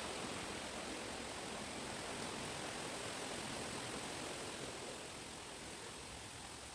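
Steady rushing hiss of outdoor ambience in a chestnut wood, easing slightly about five seconds in.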